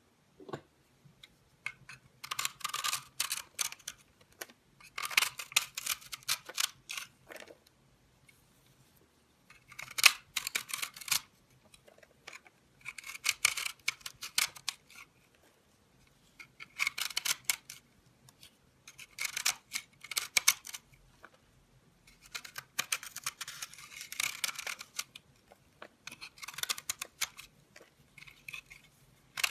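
Utility knife blade carving into a crumbly bar of dark soap: crackly crunching scrapes in about eight bursts of one to two seconds each, with short pauses between them.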